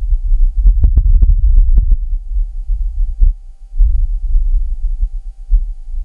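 Wind on Mars recorded by the Perseverance rover's microphone: a loud low rumble that surges and eases in gusts, with sharp pops, several about a second in and a few single ones later. A faint steady tone runs underneath.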